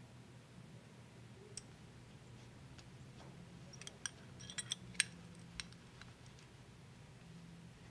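Small metallic clicks and clinks of a belt buckle being fastened, a quick cluster of them about four to five and a half seconds in, over a faint steady low hum.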